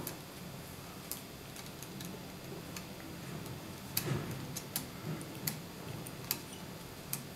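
Small metallic clicks of a screwdriver tip and a wire's crimped spade terminal against the metal contacts inside an electric iron's base, as the terminal is pushed onto a contact: a few sharp clicks at uneven gaps, the loudest about four seconds in.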